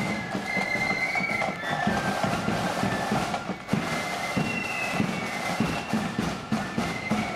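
Marching flute band playing: flutes sounding a tune together over side drums beating time.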